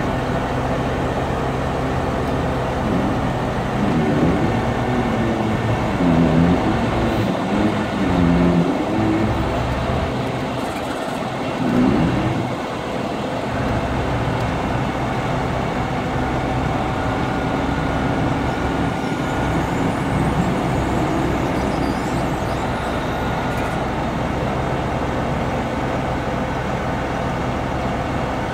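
Diesel engine of a 2000 Sterling truck running steadily while the Supervac hydro excavator's hydraulic boom is worked. For several seconds in the first half the pitch wavers up and down, then it settles to an even hum.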